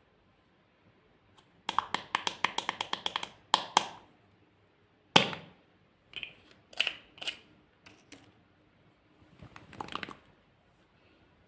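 A rapid run of about a dozen light clicks lasting a second and a half, then a few separate sharp taps and clicks with short silences between them.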